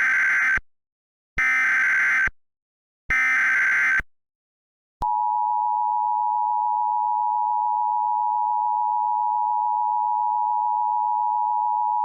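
Emergency Alert System broadcast alert: three short bursts of the SAME digital header, a screechy data tone (the first burst already under way). After a second of silence comes the EAS two-tone attention signal, a steady harsh tone held for the rest.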